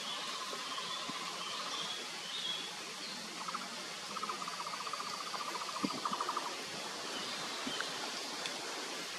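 Forest ambience over a steady hiss: a rapid, even trilling call sounds briefly at the start and again for about two seconds in the middle, with faint higher chirps over it.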